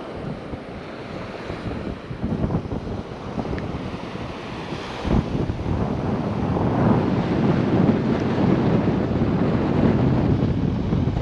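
Wind buffeting the microphone over breaking ocean surf, growing louder about halfway through, with a short thump about five seconds in.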